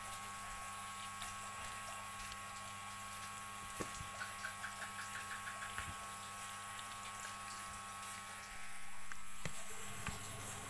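Julienned radish and spring onion being mixed through wet chilli paste by hand in a bowl: soft wet squishing with scattered faint clicks, over a steady low electrical hum. A quick run of about eight short ticks comes about halfway through.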